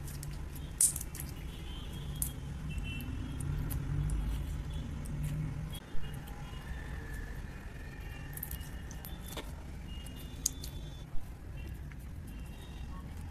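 Toothpaste slime being squeezed and pressed by hand, making sticky clicks and pops now and then, the sharpest about a second in, at about six seconds and twice near eleven seconds. A steady low rumble runs underneath.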